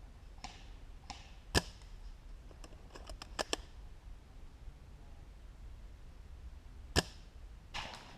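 Two sharp airsoft gun shots about five seconds apart, with a few fainter clicks in between.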